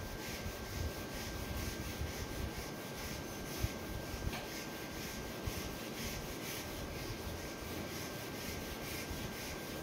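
Handheld whiteboard eraser rubbing across a whiteboard, wiping off marker writing in quick, repeated back-and-forth strokes.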